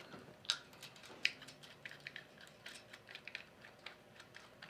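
Faint, irregular small clicks and ticks of metal nuts being spun by hand down the threaded terminal studs of a Carrier 06E compressor's terminal plate, with two sharper clicks in the first second and a half.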